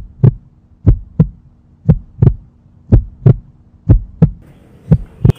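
Heartbeat sound effect: six paired lub-dub thumps, about one pair a second, over a low steady hum.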